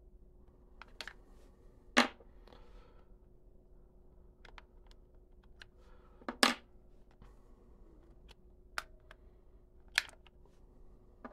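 AA batteries being pried out of a Casio fx-9750GIII graphing calculator's battery compartment: a series of separate sharp clicks and knocks of battery against spring contact and plastic. The loudest come about two, six and a half and ten seconds in, with fainter ticks between.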